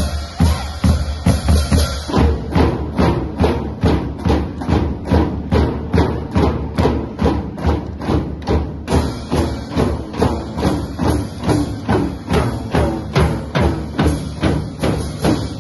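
A children's drum corps playing marching snare drums together in a steady beat, with sharp, even strokes about two or three a second.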